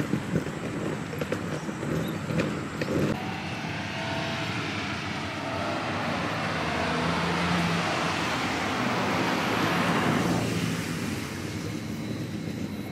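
Footsteps on pavement for the first few seconds, then a car approaching and passing close by, its tyre and engine noise swelling for several seconds and falling away quickly about ten seconds in.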